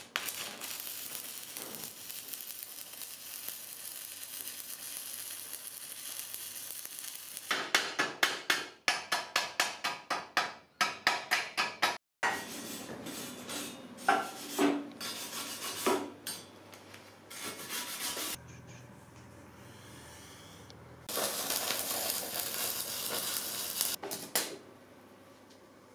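Stick welding with Lincoln 8018 low-hydrogen rods: the arc's steady hiss for about seven seconds, then a quick run of sharp metallic strikes and scattered clanks of steel being handled, and a second short burst of arc hiss near the end.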